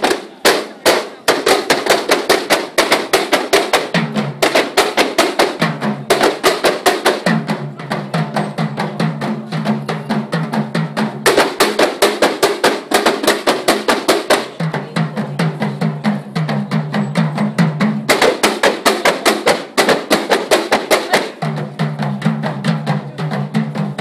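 Kompang, Malay hand-beaten frame drums, played by a troupe in a fast, even interlocking beat.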